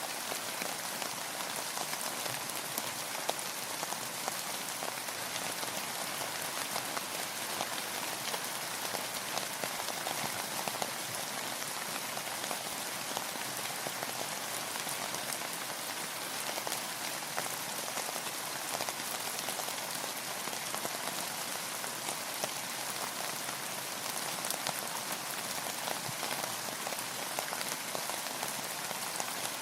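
Steady rain falling, a dense even hiss of many drops pattering on a surface with fine individual ticks throughout.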